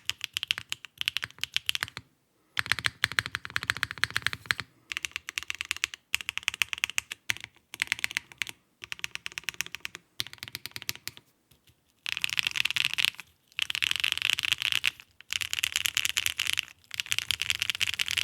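Typing on a Mode Sonnet mechanical keyboard with stock BSUN Maple Sugar switches, a polypropylene plate, an aluminium bottom case with an inner copper weight, and KKB Machinist keycaps. The keystrokes come in fast bursts of clicks with short pauses between them. Typing is sparse from about ten to twelve seconds in, then the bursts are louder and denser.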